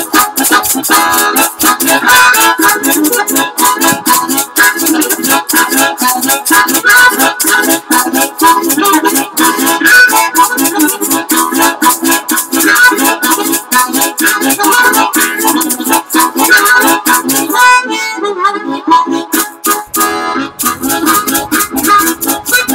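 Harmonica music: a harmonica playing over a steady, evenly pulsing rhythmic backing.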